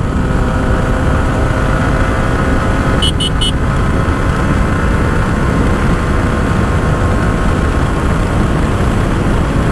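Yamaha R15 V4's single-cylinder engine running steadily at highway speed, under heavy wind rush over the microphone. A short triple high-pitched beep sounds about three seconds in.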